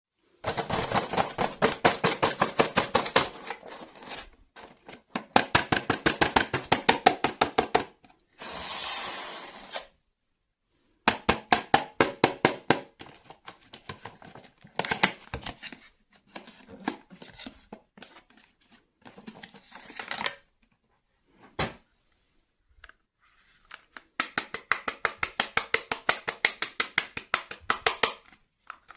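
Rapid runs of small plastic clicks and taps from toy pieces being handled, with a brief hissing scrape about nine seconds in.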